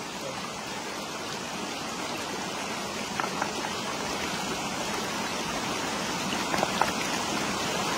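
Shallow stream running over rocks: a steady rush of water, with a few light knocks about three seconds in and again near seven seconds.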